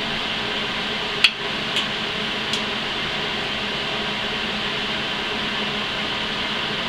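Steady background hiss, with one sharp metallic click about a second in and two faint ticks after it, as a magnetic welding holder and a length of steel square tube are set in place against the frame.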